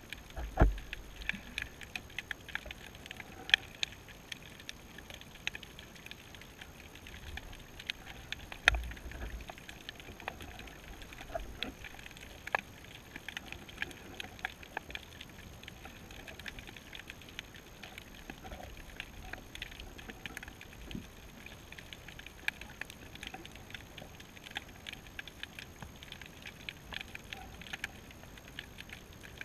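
Underwater ambience on a shallow rocky seabed: a dense, continuous crackle of sharp clicks, typical of snapping shrimp. Two low thumps stand out, one just after the start and one about nine seconds in.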